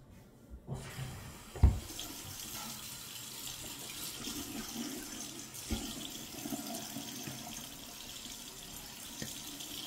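Sink tap turned on about a second in and running steadily into the basin, with a sharp thump shortly after it starts and a lighter one later.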